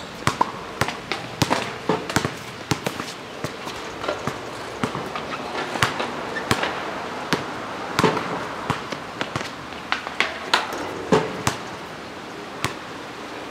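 Basketball dribbled on an outdoor asphalt court: sharp bounces at irregular intervals, several a second in spells.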